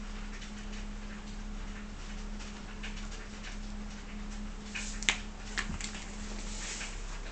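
Kittens pouncing on a teaser toy on a hard floor: soft scattered taps and scratches over a steady low hum, with a sharp knock about five seconds in and a smaller one just after.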